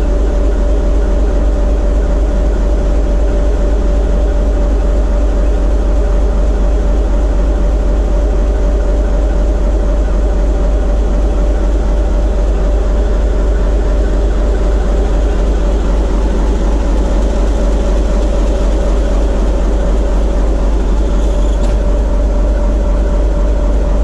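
TEM2 shunting locomotive's diesel engine running steadily under load on a water load rheostat, heard inside the cab as a loud, even drone with a steady whine over it. The engine is being run in after a major overhaul.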